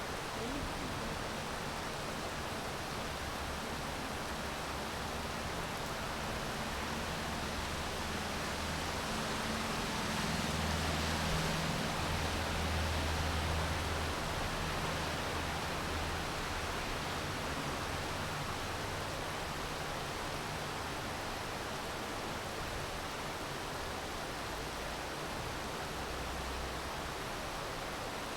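Steady rainfall, an even hiss with no breaks. A low rumble swells and fades about a third of the way in.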